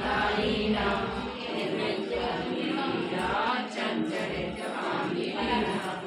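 Group of women singing a devotional puja song together, many voices overlapping in a chant-like tune.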